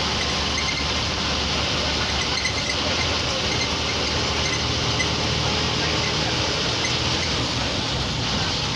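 MSRTC bus engine running steadily under way, heard from inside the driver's cabin, with a low hum, road noise and cabin rattle blended into one continuous din.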